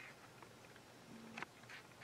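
Near silence: room tone with a few faint clicks and taps about a second and a half in.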